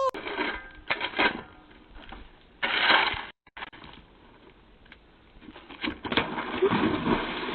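A long-handled brush scraping and knocking on the tiled edge of a swimming pool: a few sharp knocks about a second in and a longer scrubbing stroke about three seconds in.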